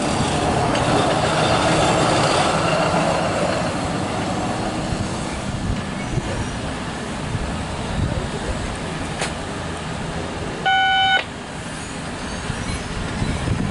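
CSX hi-rail pickup truck rolling along the rails, its wheels on the track making a noisy rolling sound with a faint whine that fades over the first few seconds as it pulls away. About eleven seconds in comes one short steady beep, about half a second long.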